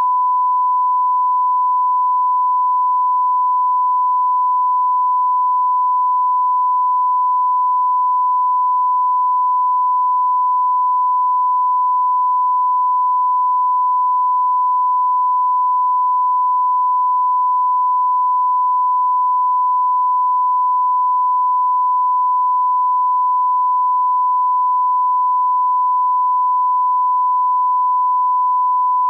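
Steady 1 kHz reference test tone, a single unbroken sine-wave beep at one pitch, as played with television colour bars; it switches on abruptly out of silence.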